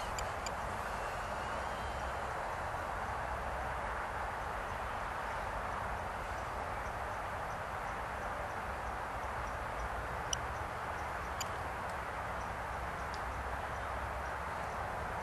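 Steady outdoor background noise with a low wind rumble on the microphone, and a couple of faint clicks about ten and eleven seconds in.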